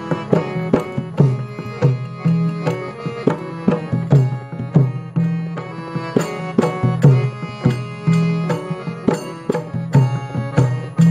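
Instrumental music: a hand drum plays a quick, steady rhythm of strokes over held pitched notes.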